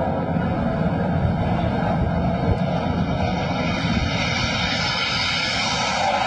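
Jet engine noise from a low-flying fighter jet: a steady rumble, with a hiss that grows stronger over the last couple of seconds as the jet draws closer.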